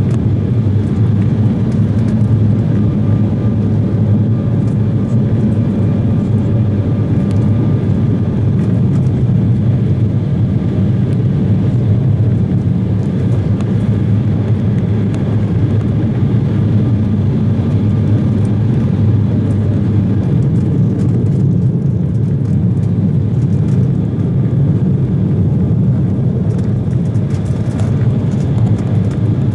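Steady cabin noise inside an Embraer 170 airliner: the low rumble of its turbofan engines and rushing air, with a faint steady whine.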